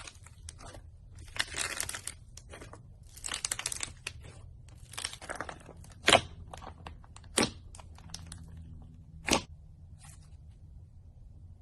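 Slime being squeezed and stretched by hand, with crackly squishing bursts, followed by three sharp pops spaced a second or two apart.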